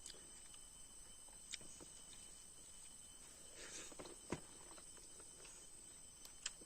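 Quiet eating noises: a few soft mouth and hand clicks over near silence, the sharpest about four seconds in.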